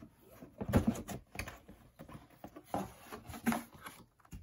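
A cardboard LEGO box being handled and opened and paper instruction booklets pulled out of it: irregular rustling, scraping and bumps, the loudest about a second in.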